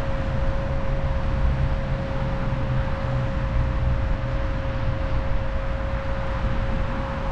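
Fiido Q1S electric scooter running flat out at top speed: its stock 250 W motor holds a steady whine at one pitch over a constant rush of wind and road noise and a low rumble.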